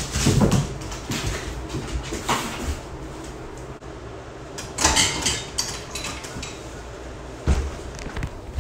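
Bowflex Xtreme home gym being worked through seated chest-fly reps: the cables slide through the pulleys with a rushing sound and a knock about every two and a half seconds.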